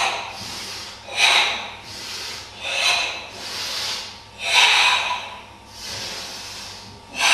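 Forced, audible kata breathing of Tensho: loud breaths about every one and a half seconds with fainter breaths between them, and a longer pause before another loud breath at the very end.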